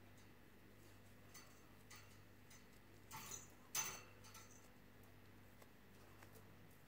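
Near silence with faint, irregular ticks of a crochet hook and yarn as chain stitches are worked, and two short, louder rustles a little past the middle. A low, steady hum lies underneath.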